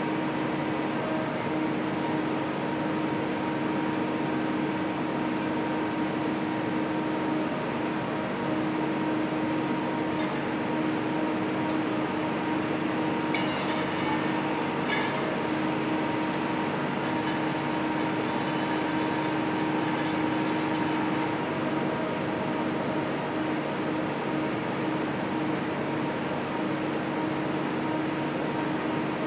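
Fletcher 3100 Series roof bolter running, a steady mechanical hum that holds one even pitch, with a few light metallic clinks a little under halfway.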